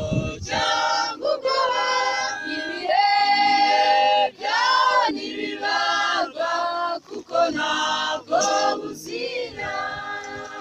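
Mixed choir of men's and women's voices singing a hymn a cappella, including one long held note about three seconds in.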